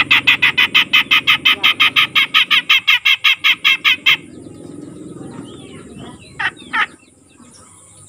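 Grey-cheeked bulbul (cucak jenggot) giving a fast, even rattling chatter of about six or seven notes a second for some four seconds. Near the end it gives two short, sharp calls.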